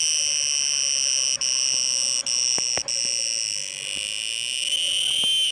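Crickets trilling in a continuous, steady high-pitched drone, broken by a few very brief gaps and dipping a little in loudness about four seconds in.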